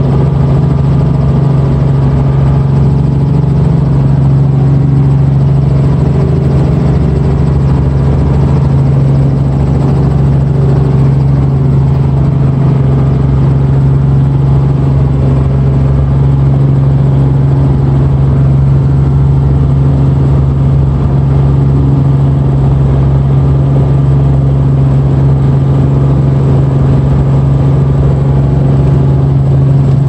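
Robinson helicopter engine and rotors running steadily, heard from inside the cabin: a loud, constant drone with one strong low hum.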